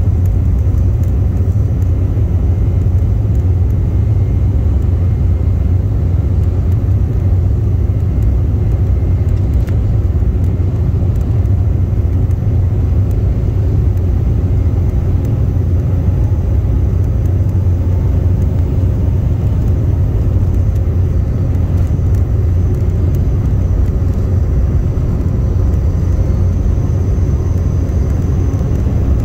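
Jet airliner cabin noise while rolling on the ground: a steady low rumble from the engines and wheels, with a faint high engine whine that grows a little near the end.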